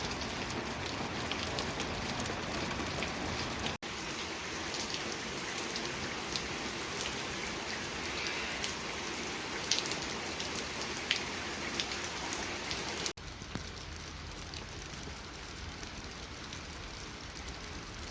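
Steady rain falling, with many single drops ticking sharply on hard surfaces. It breaks off suddenly about 4 s and 13 s in, and runs a little quieter after the second break.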